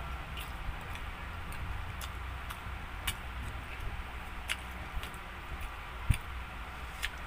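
Close-up chewing and mouth sounds of a person eating pizza: irregular soft clicks and smacks over a steady low hum, with one louder knock about six seconds in.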